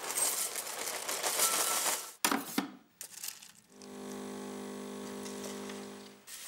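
Dry cornflakes rattling into a ceramic bowl for about two seconds, followed by a couple of short knocks. From about four to six seconds in, milk is poured steadily from a carton onto the flakes.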